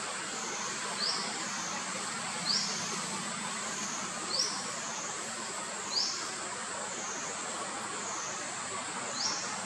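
High, continuous insect drone that wavers up and down in pitch about once a second over a steady hiss, with five short rising bird chirps spread through it.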